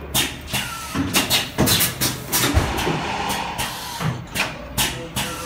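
PVC liquid filling and sealing machine running: a steady low hum with irregular clacks and knocks from its moving parts.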